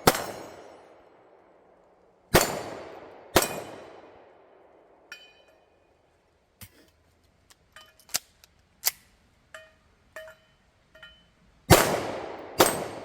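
Gunshots with echoing tails: two about a second apart early on, and two more about a second apart near the end. Between them comes a string of fainter, sharp metallic clicks with a brief ring.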